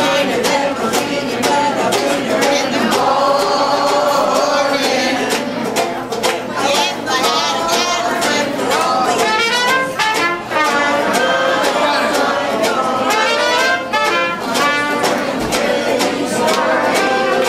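A small strolling band with tuba and banjo playing a jazz tune while a woman sings.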